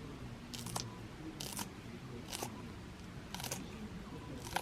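Food packaging handled and cut open: about five short rustles and snips.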